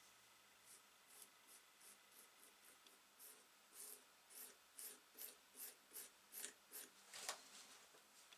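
A small bristle brush sweeping wood dust off a wooden saw handle in soft, quick strokes, about three a second. The strokes grow louder toward the end.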